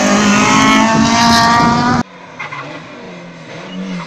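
Rally car engine revving hard close by, its pitch climbing as the car accelerates. About two seconds in the sound cuts off abruptly to a quieter, more distant car engine running steadily.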